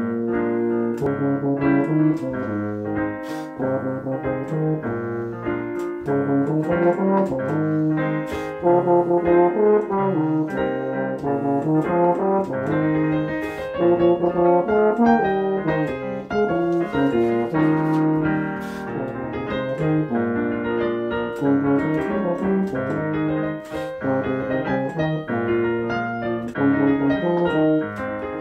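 Tuba playing a melody over piano accompaniment: held low brass notes that move from note to note, with piano chords underneath.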